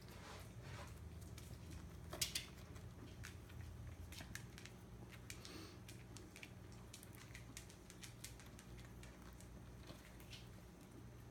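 Kitten playing on a hardwood floor: scattered light taps and clicks of paws and claws on the boards, with a sharper knock about two seconds in, over a steady low hum.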